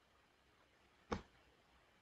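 A single short mouse click about a second in, otherwise near silence with faint room tone.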